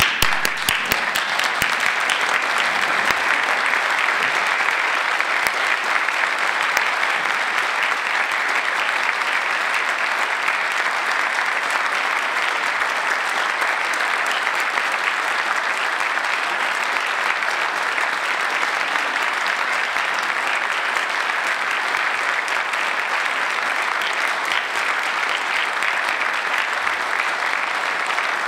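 A large crowd applauding. The clapping starts suddenly and keeps up steadily without a break.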